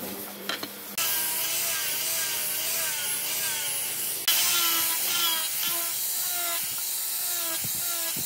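Angle grinder fitted with a sanding disc, running and sanding the edge of a wooden panel. The noise comes in suddenly about a second in and gets louder after about four seconds as the disc works the wood, its whine wavering under the load.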